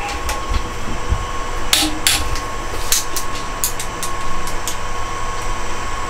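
Steady workshop hum with a constant high tone, broken by a few sharp clicks from a click-type torque wrench being handled, the loudest about two seconds in and several more close together a little past the middle.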